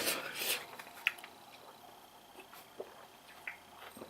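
A person's breath at the start, then faint wet mouth clicks and small liquid sounds while they recover from the burn of very hot peppers.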